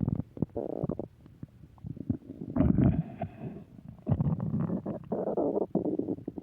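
Human stomach growling: irregular gurgling rumbles broken by short bubbling pops. The loudest gurgle comes about two and a half seconds in, and another long gurgle runs from about four seconds to near the end.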